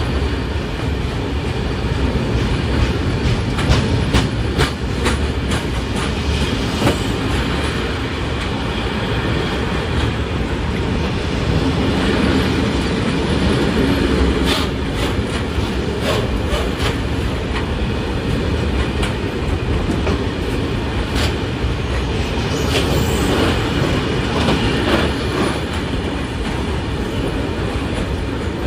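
Freight train of Eanos open-top wagons rolling past at speed: a loud, steady rumble of wheels on rails, with clusters of sharp clicks and clatter from the wheels.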